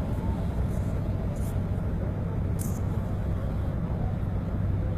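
Steady low hum of the moored coastal ship MS Vesterålen's engines running at the quay, with wind buffeting the microphone. A couple of brief high hisses come through in the middle.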